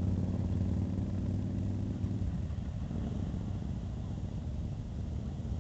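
Harley-Davidson V-twin motorcycle engines rumbling at low speed as a touring bike rolls out of the group. The strongest, even engine note eases off about two seconds in, leaving a rougher, lower rumble of several engines.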